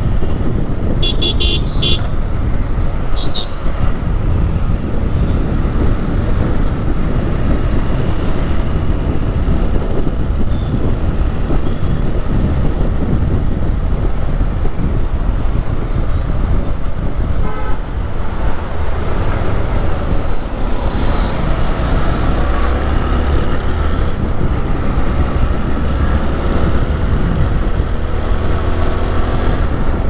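Motorcycle riding in city traffic: steady wind and road noise with the engine running, and a few short vehicle horn toots in the first few seconds.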